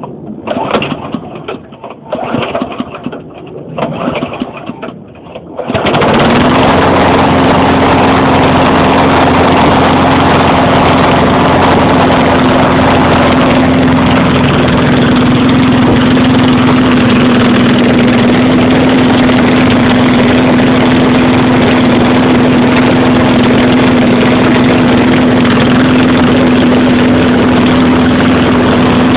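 A 4 horsepower lawn mower engine being started: it turns over in a few short bursts, catches about six seconds in, then runs loud and steady. The owner says it runs rough and needs a tune-up.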